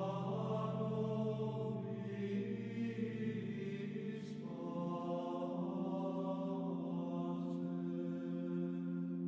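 Background music: slow, sustained drone-like chords, shifting to a new chord about halfway through.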